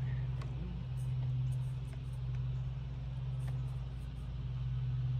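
A steady low hum, with a few faint clicks and light taps over it.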